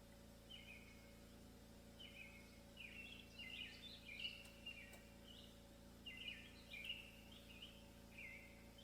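Faint birdsong outdoors: a songbird calling in quick runs of short chirping notes, busiest from about two seconds in, over a faint steady hum.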